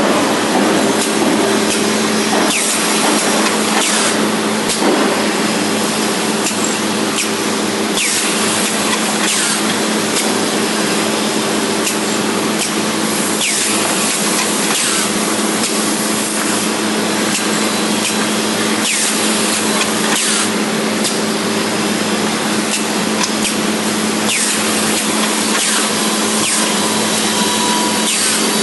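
Automatic angle drilling machine running: a steady motor hum under loud, continuous drilling noise.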